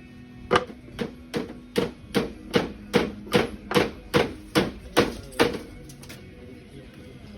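A hammer striking, about a dozen blows in a steady rhythm of roughly two to three a second, each with a short ring. The blows stop about five and a half seconds in.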